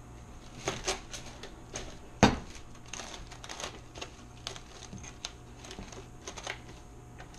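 Plastic cling wrap being stretched and pressed around the rim of a stainless steel mixing bowl, giving irregular light crackles and clicks. One sharp knock about two seconds in is the loudest sound.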